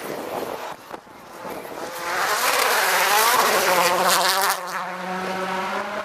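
Rally car engines at high revs: one car's note falls away in the first second, then a car comes through loudly from about two seconds in, its pitch rising and falling with gear changes, before settling into a steadier, quieter note as it moves off.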